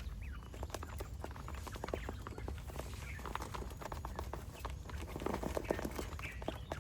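Chickens feeding: many quick, irregular pecking taps with a few short clucks.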